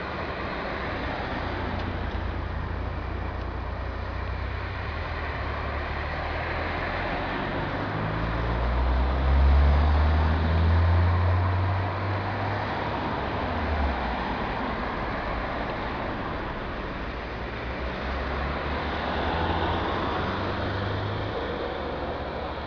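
Car engine and road noise while driving. The engine note climbs and gets louder about a third of the way in, then drops back a few seconds later.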